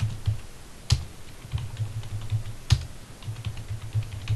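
Typing on a computer keyboard: a quick run of keystrokes with two louder, sharper key presses, about a second in and past the middle, as shell commands are entered.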